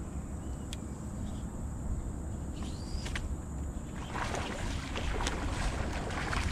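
Wind rumble on the microphone over water lapping at a bass boat's hull. About four seconds in there is a burst of splashing and clicking as a hooked bass is reeled in.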